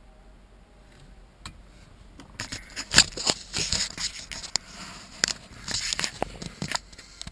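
Handling noise from a phone being moved about inside a car: rustling and scraping with a string of sharp clicks, starting about two seconds in, the sharpest near three seconds.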